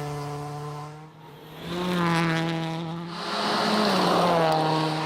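Race car engine running at high revs, a steady engine note with slight rises and dips. It drops out briefly about a second in, then returns.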